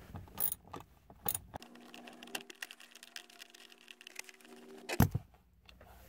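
Screwdriver backing out a T15 Torx screw from the plastic steering column shroud: a few clicks, then a few seconds of rapid ticking over a faint steady hum, ending in a sharp knock about five seconds in.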